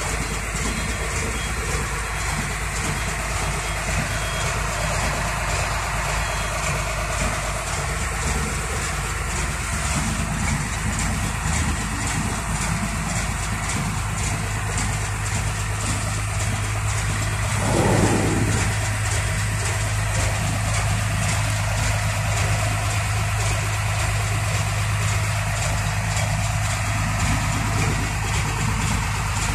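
Hino tronton truck's diesel engine idling steadily. A steady low hum joins it about halfway through, and a little later a short sound slides down in pitch, the loudest moment.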